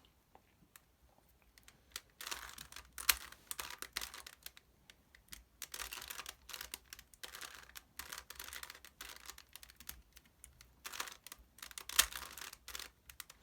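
Plastic Rubik's Cube layers being twisted by hand in bursts of quick clicking turns, with a couple of sharper snaps.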